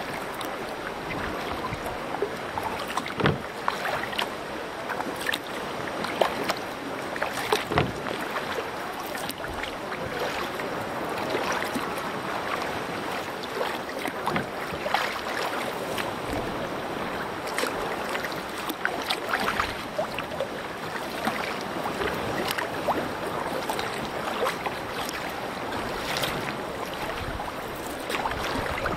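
Water rushing and splashing around a canoe being paddled on the sea, with many short irregular splashes over a steady wash and some wind on the microphone.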